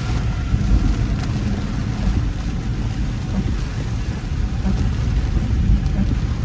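Car driving through a heavy thunderstorm downpour: a steady low rumble of road and wind noise with a hiss of rain on the vehicle.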